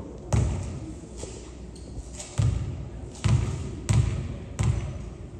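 Basketball bounced on a hardwood gym floor by a player at the free-throw line before the shot: five loud bounces at an uneven pace, each echoing in the hall.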